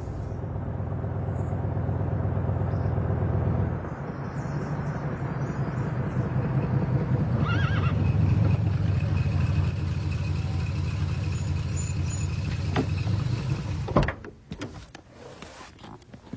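A car engine running with a steady low rumble as it drives off, its note changing about four seconds in, with a brief high squeal near the middle; the sound cuts off sharply near the end.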